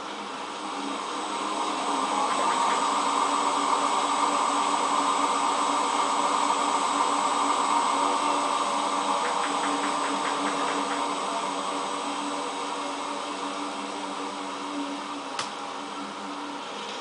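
Hotpoint Ultima WT960 washing machine on its spin cycle, a loud steady drum and motor noise that swells over the first few seconds and then slowly eases off. The owner puts the noise down to worn drum bearings. A single sharp click comes near the end.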